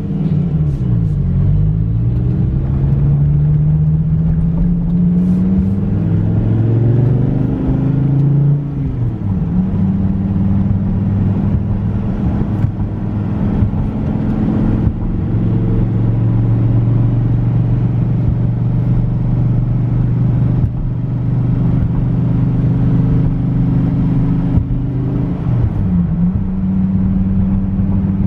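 2014 Dodge Viper GTS's 8.4-litre V10 engine running while driving: its pitch rises for several seconds, falls sharply about nine seconds in, then holds steady at cruise, with a brief dip near the end.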